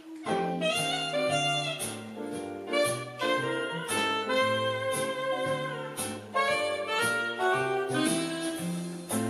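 Instrumental background music: a melody over a moving bass line with a steady beat, coming in suddenly.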